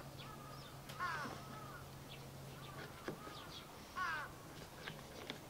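Crows cawing several times, short harsh calls with the loudest about four seconds in, over a steady low hum and a few light clicks.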